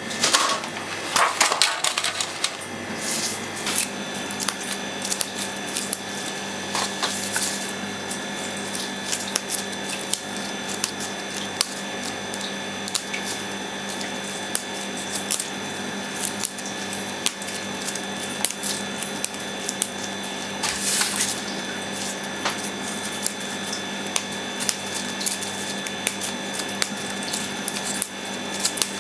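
Fresh flat-leaf parsley being plucked from its stems by hand: a run of small crisp snaps and leaf rustles, with sprigs dropping onto a wooden cutting board. A steady hum sits underneath.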